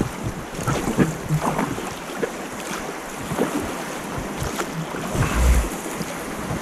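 Fast river water rushing and splashing past a drifting raft, with wind buffeting the microphone and a few light knocks.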